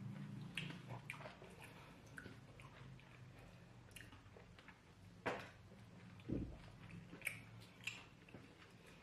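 Faint eating sounds of fufu with light soup: chewing and wet mouth smacks with scattered sharp clicks. The loudest click comes about five seconds in, followed by a low thump.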